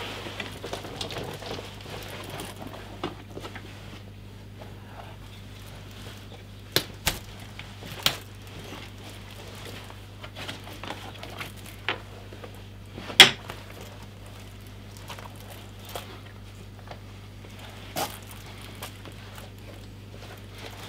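A leather welding jacket being handled and put on: rustling of the stiff leather with a handful of scattered sharp clicks, the loudest about two thirds of the way through.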